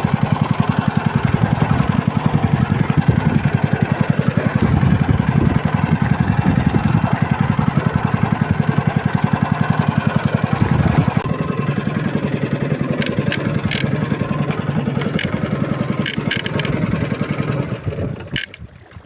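A small fishing boat's motor running steadily with a fast, even pulse. It eases off slightly about halfway through and dies away near the end, with a few light clicks before it fades.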